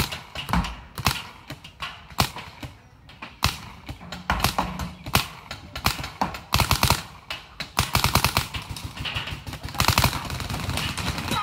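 Paintball markers firing: single pops scattered between quick strings of shots, with the fastest ripple about two-thirds of the way through.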